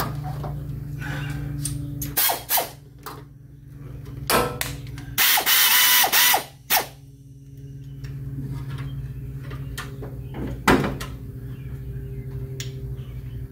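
Hand ratchet wrench clicking in short spells as fasteners on a Chevy 350 small-block V8 are loosened and turned. The longest and loudest run comes about five seconds in, with a few sharp knocks of tools on metal, over a steady low hum.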